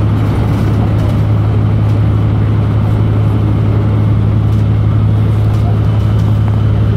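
Steady drone of a road vehicle on the move: a constant low hum with road noise over it, unchanging throughout.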